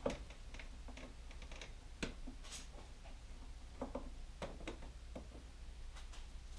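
Scattered light clicks and taps of hand work with a screwdriver on a plastic cargo-area trim panel as a Phillips screw is backed out, with a sharper click right at the start and a few more around the middle.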